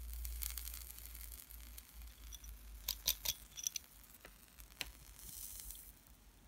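Faint crackling and sizzling from a mesh coil on a Genesis atomizer being fired dry and glowing red, with a few sharp clicks about three seconds in.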